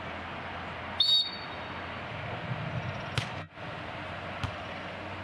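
A referee's whistle blown once in a short, high blast about a second in, over steady outdoor background noise, with a couple of sharp knocks later on.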